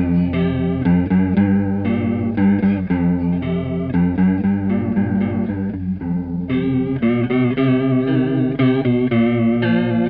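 Electric guitar, a Squier Starcaster, playing a riff through a Stoy Sound Choir Boy bucket-brigade analog chorus pedal, with a Boss Blues Driver as clean boost or light overdrive. The chorus settings are being changed by turning the pedal's depth knob while the riff plays.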